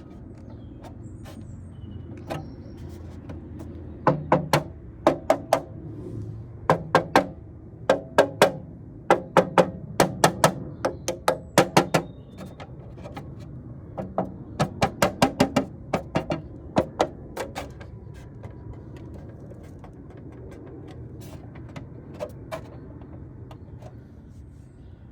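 Tesla Model 3 plastic aero wheel cover rattling on the alloy wheel while driving: sharp, irregular clacks in quick clusters over a steady low road rumble. The clacks die away about three quarters of the way through. The rattle comes from a loose-fitting cover on its metal spring clips.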